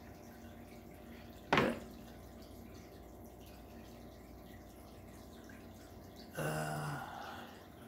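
Quiet room with a faint steady background hum, broken by one short sharp noise about a second and a half in and a brief hummed voice sound near the end.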